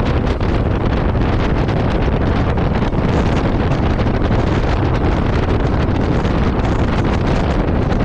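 Steady wind buffeting the microphone of a Royal Enfield Meteor 350 being ridden along at speed, with the bike's single-cylinder engine running underneath.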